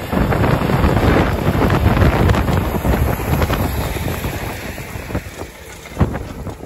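John Deere tractor pulling a field cultivator through dry ground: the engine runs under load while soil and stubble rush through the tillage tools, heavily mixed with wind noise on the microphone. The noise is loudest in the first few seconds and eases off later, with a single sharp knock about six seconds in.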